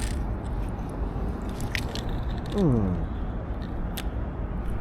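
Steady low background noise with a few light clicks. A little past halfway comes a short hum from a man's voice, falling in pitch.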